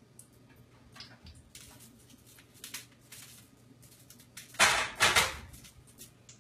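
Cast-iron skillet being handled on an electric coil burner: a few faint clicks, then two loud clattering scrapes about half a second apart near the end as the pan is set back down on the burner. A low steady hum sits underneath.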